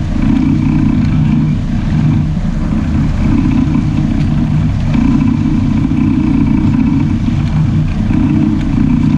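Sport-fishing boat's engines running steadily, a loud low drone.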